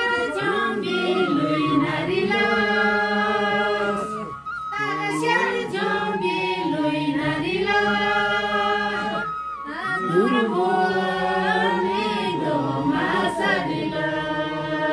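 A small group of women singing a traditional Nyinba song together, unaccompanied, in long held phrases with short breaks for breath about four and ten seconds in.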